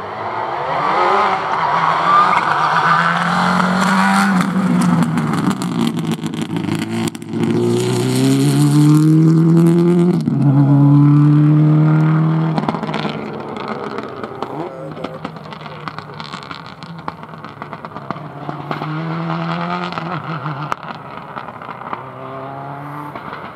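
Subaru Impreza rally car's turbocharged flat-four engine accelerating hard through the gears, its pitch climbing and breaking at each upshift as it passes. It then pulls away into the distance with more upshifts.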